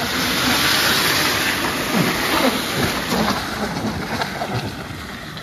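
Land Rover Discovery's engine pulling hard up a loose forest track, its tyres spinning and spraying dirt and pine needles in a dense rush of noise, loudest in the first three seconds and fading as it moves away.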